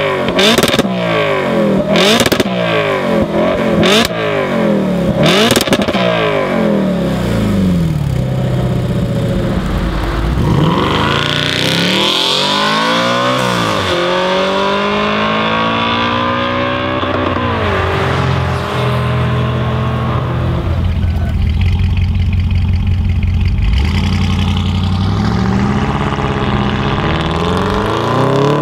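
Loud Audi V8 exhaust: first the RS5 Cabriolet on an ASG exhaust is blipped repeatedly, about once a second, with sharp pops and crackles on each lift-off. This is followed by an Audi accelerating hard with rising and falling sweeps through the gears, then a steadier engine note, and a rising rev again near the end.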